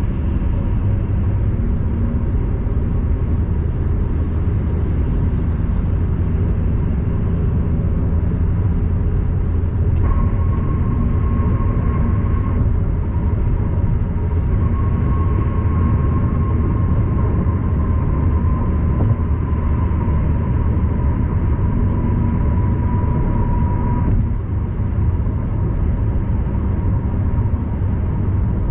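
Steady low road and engine rumble inside a car cruising on an expressway. A faint thin steady tone comes in about ten seconds in and sinks slightly in pitch before stopping a few seconds before the end.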